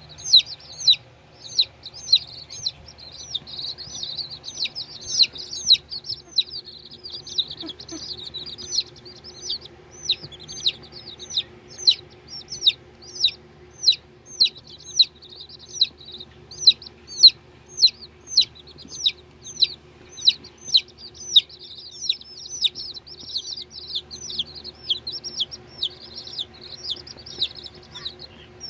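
Baby chickens (chicks) peeping continuously: a rapid string of short, high peeps that each fall in pitch, a few per second, with several chicks overlapping at times.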